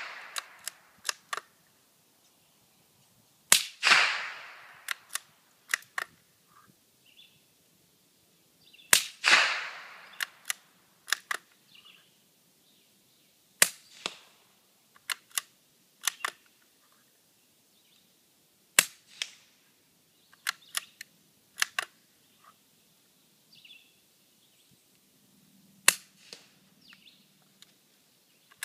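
Five shots from a suppressed Savage Mark II FV-SR .22 bolt-action rifle, spaced about five seconds apart, each followed by a few light metallic clicks of the bolt being worked. The first two shots, about 3.5 and 9 seconds in, trail off for about a second; the last three are short, sharp cracks.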